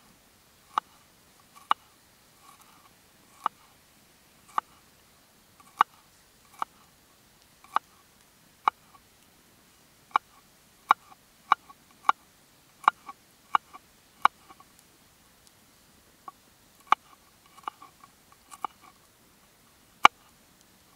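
Knife slicing green onions on a wooden cutting board: sharp taps of the blade on the board about once a second, closer together around the middle, with faint crunching of the onion between them.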